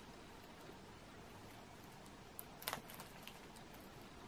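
Near-quiet room tone with a few faint clicks and taps in the middle, fingers handling a plastic Blu-ray case.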